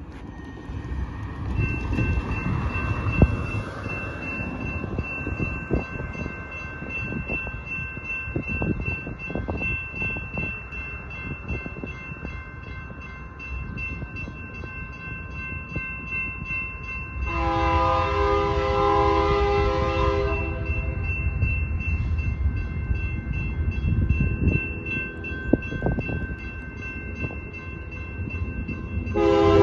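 Railroad crossing warning bells ringing steadily. An approaching Amtrak locomotive's horn sounds one long blast about 17 seconds in and starts another just before the end.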